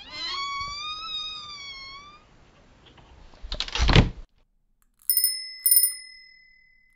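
A high, wavering call lasting about two seconds, then a short rushing burst of noise, then a bicycle bell rung twice near the end.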